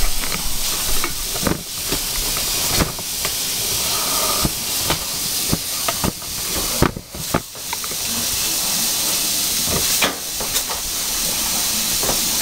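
Kitchen faucet running into the sink as hands are washed under it, a steady hiss of water broken by scattered knocks and splashes, with a brief dip about seven seconds in.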